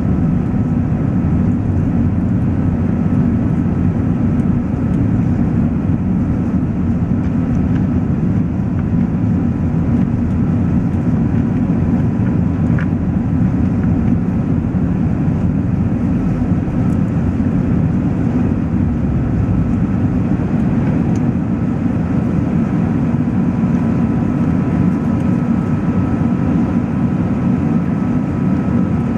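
Qantas Airbus A380 jet noise: a steady, even low rumble with two faint steady whining tones above it, unchanging throughout.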